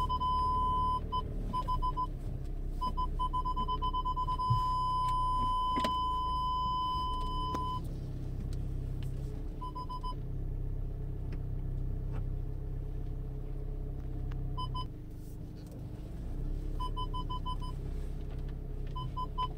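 Seat Leon Mk3 Park Pilot parking-sensor warning beeping in the car cabin: short runs of high beeps, and a continuous tone held for about five seconds from around three seconds in, the signal that an obstacle is very close to the front sensors. Under it runs a steady low rumble of the car.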